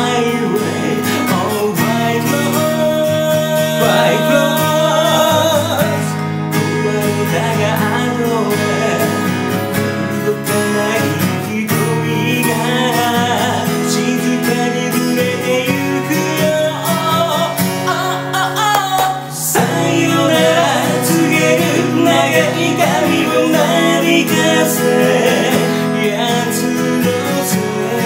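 A man singing while strumming a capoed acoustic guitar, steady chords under a sung melody with no pause.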